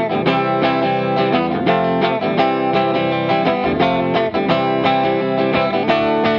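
Background music: a guitar picking a melody of quick notes.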